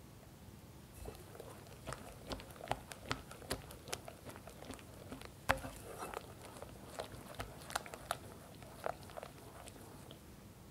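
Wire whisk beating a thick cream cheese batter in a glass bowl: irregular light clicks of the wires against the glass, about two or three a second, with the strongest click about halfway through.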